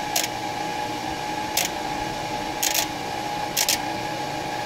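Pro-Cut PFM 9.2 on-car brake lathe running and turning the hub and brake rotor while it compensates for runout. Its motor gives a steady hum with a held tone, broken by four short clicks about a second apart.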